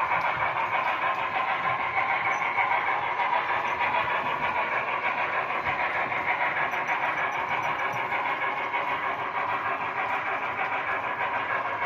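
Union Pacific 844 steam excursion train running: a steady rushing noise with a fast flutter.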